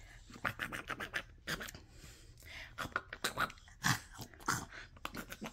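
Soft mouth noises of pretend eating: quiet, irregular smacking and chewing clicks, with a few faint brief vocal sounds.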